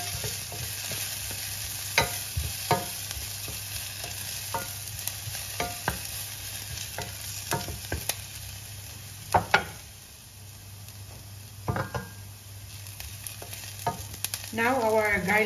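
Onion and ginger frying in olive oil in a pan: a steady sizzle, with the utensil stirring them clicking and scraping against the pan at irregular moments. The sizzle eases a little about two-thirds of the way through, and a brief voice comes in near the end.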